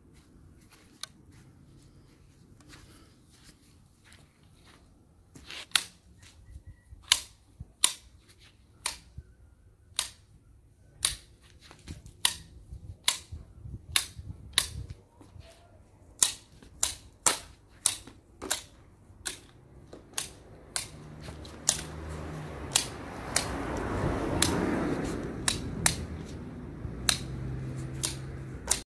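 Hand pruning shears snipping through hedge stems, a sharp click at each cut, one to two a second, starting a few seconds in. About three-quarters of the way through, a rushing noise swells up under the snips.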